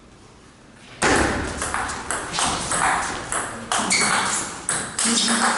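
Table tennis rally: the ball being struck by the bats and bouncing on the table in a quick run of sharp clicks, about two to three a second. It starts suddenly about a second in.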